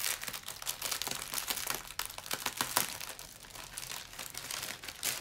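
Plastic wrapping crinkling as hands unwind and handle a plastic-wrapped roll of diamond-painting supplies: a run of irregular sharp crackles.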